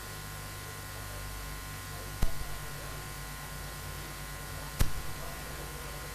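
Steady low electrical hum, with two sharp knocks about two and a half seconds apart that are the loudest sounds.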